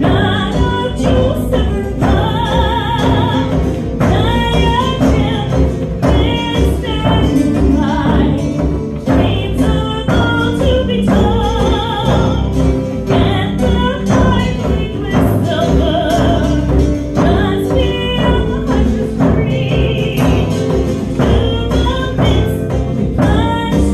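A live folk band with a female lead vocal singing with a strong vibrato over strummed acoustic guitar.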